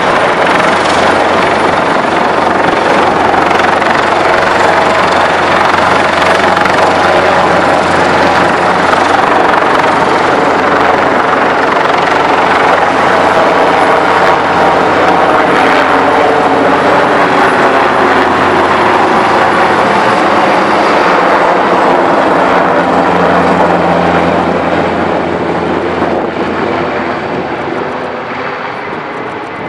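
Airbus H225 Super Puma twin-turbine helicopter flying low overhead: loud, steady rotor and turbine noise that fades over the last few seconds as it moves away.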